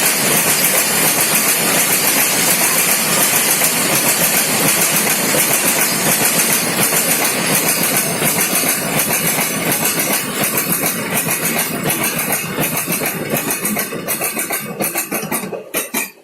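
Coal-loaded BOXN freight wagons rolling past on the adjacent track, their wheels making a loud, rapid clatter on the rails, a track sound called terrible. It thins out and dies away at the very end.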